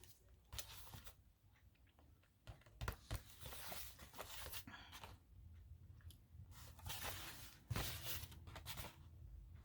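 Faint rustle and crackle of paper as collage journal pages are handled and turned, with a few soft clicks.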